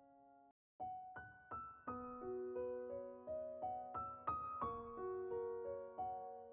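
Background piano music: a held chord dies away, cuts out briefly about half a second in, then a gentle melody of struck notes resumes at a steady pace.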